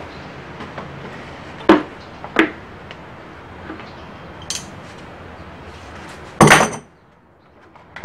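Pliers and metal parts clinking as a spring clamp and fuel line are worked off a push mower's carburettor: two sharp metallic clicks, a small high click, then a louder clatter about six and a half seconds in.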